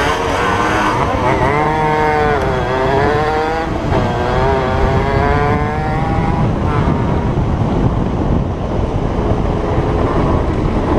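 50cc two-stroke dirt bike engines revving hard, the pitch climbing and then dropping several times over the first six seconds as the gears change, then running on under heavy wind noise on the helmet camera.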